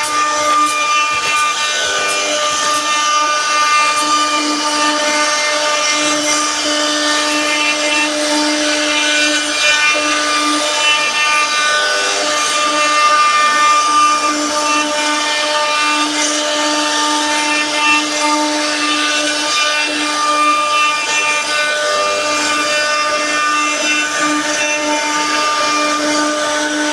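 CNC router spindle running steadily with a constant whine while its bit cuts into wood, carving a 3D relief, with a continuous rasping cutting noise.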